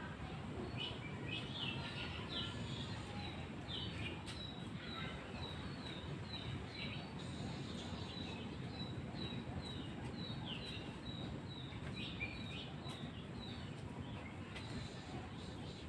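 White-rumped shama (murai batu) singing: a run of short high notes repeated about twice a second, mixed with quick falling whistles, over a steady low background hiss.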